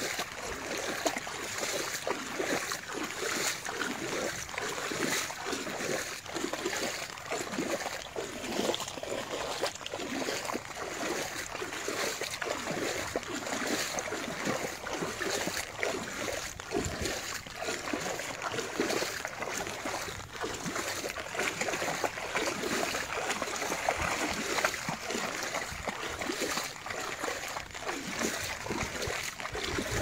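Continuous irregular splashing of legs wading through shallow floodwater, as a dog trots along the flooded lane.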